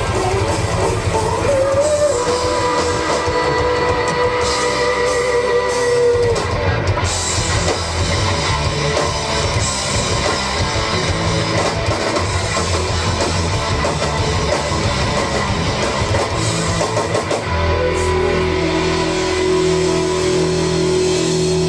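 Live rock band playing loud distorted electric guitars and drum kit, with long held guitar notes ringing over the band.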